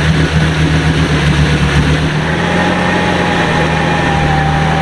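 4x4 off-road vehicle's engine running steadily, its note changing about two seconds in.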